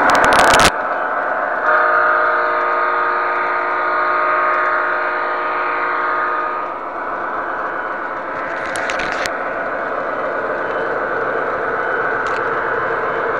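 MTH O-gauge model locomotive's sound system blowing one long horn chord of several steady notes for about five seconds, over the steady rumble of the model train running on three-rail track. It opens with a brief loud rushing noise, and a few sharp clicks come about nine seconds in.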